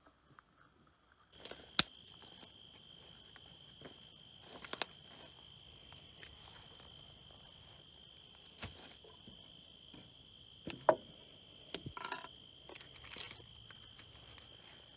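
A steady high trill of insects begins after about a second of near silence. Over it come a handful of sharp clicks and knocks as tools are handled on the wooden stair treads.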